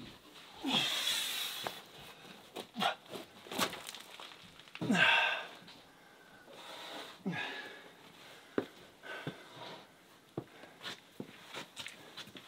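Wooden knocks and scraping as a peeled log pole is handled and set onto a timber roof frame: scattered sharp knocks, with a longer scrape about a second in and another around five seconds in.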